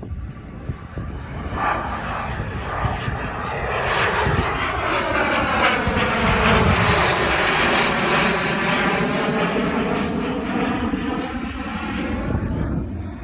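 A private jet's engines during takeoff. The noise builds over the first few seconds, is loudest around the middle, then slowly fades as the aircraft passes and climbs away, with a sweeping, shifting whoosh.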